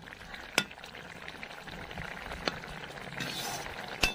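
Fish frying in oil in a metal pan, sizzling steadily, with a metal spatula stirring and striking the pan with a few sharp taps.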